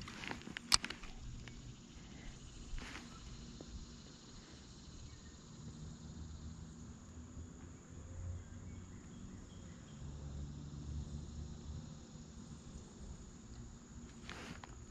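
Faint steady chirring of insects in the riverbank trees, with a low rumble of wind on the microphone now and then. A sharp click stands out about a second in, with a few softer ticks around it, as the spinning rod and reel are handled.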